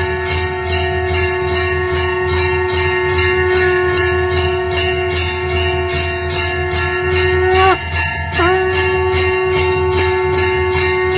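Temple bell rung continuously, its clapper striking about four times a second in an even rhythm. A steady held tone rings under it and breaks off briefly with a bend in pitch about eight seconds in.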